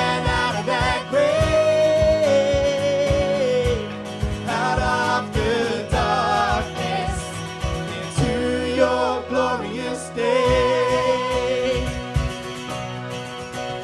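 Worship song: a singer with a band behind, over a steady drum beat.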